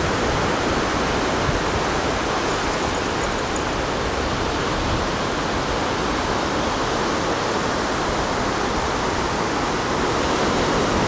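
Ocean surf breaking and washing in, a steady rushing hiss that grows a little louder near the end.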